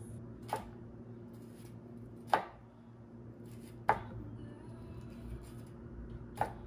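Kitchen knife chopping vegetables on a cutting board: four separate chops spaced one to two and a half seconds apart, the middle two the loudest.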